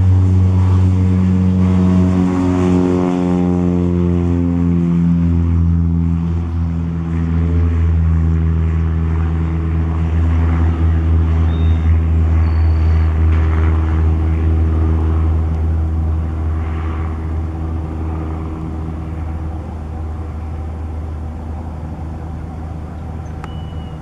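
A 1962 Mooney single-engine propeller plane at full takeoff power, its engine drone dropping in pitch over the first few seconds as it passes close by. The drone then holds steady and slowly fades as the plane climbs away.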